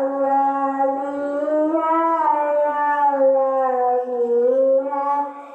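A long, drawn-out voice held on one continuous note for about five seconds, slowly wavering up and down in pitch, like a howl or a chanted call.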